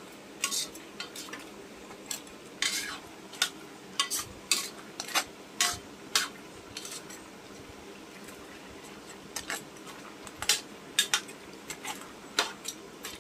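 Metal spatula stirring crab, shrimp and vegetables in coconut milk in a large metal pot, scraping and clinking irregularly against the pot's side, with a quieter spell in the middle. A steady low hum runs underneath.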